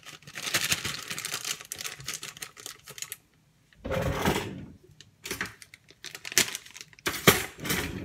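A plastic bag of shredded coconut flakes crinkling as it is handled. The crackling is dense for about three seconds, stops briefly, then comes in short bursts about once a second.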